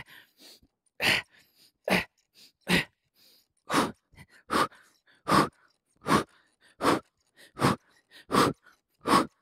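A man breathing hard with exertion during plank jumping jacks: a short, forceful exhale about every 0.8 seconds, eleven in a steady rhythm.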